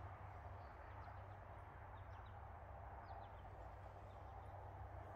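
Quiet outdoor ambience: a few faint, short high bird chirps over a steady low hum.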